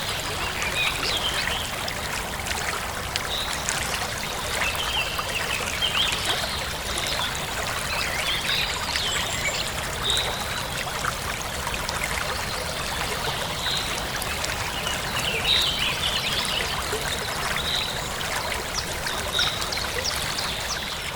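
Running water with a steady rushing noise, like a stream, with short bird chirps scattered over it.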